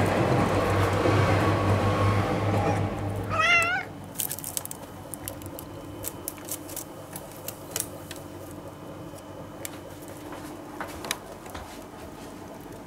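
A domestic cat gives one short meow, wavering up and down in pitch, about three and a half seconds in. It is heard over a steady low rumble that stops abruptly just after. A few faint clicks and taps follow.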